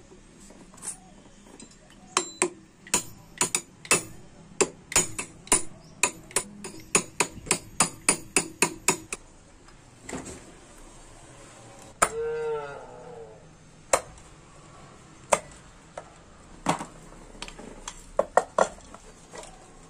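Sharp metal-on-metal taps while a TVS 50 moped engine's aluminium crankcase is being put together, a quick run of about three a second, then scattered taps. Near the middle a short call falling in pitch is heard.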